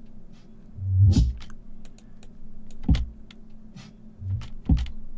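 A sampled drum break playing back: sparse kick and snare hits with quick hi-hat ticks between them.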